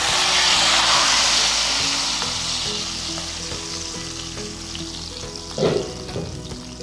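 Hot ghee tempering with fried garlic, dried red chilies and cumin seeds is poured into a pot of cooked dal, sizzling loudly at once and dying down over a few seconds. There is a single knock near the end.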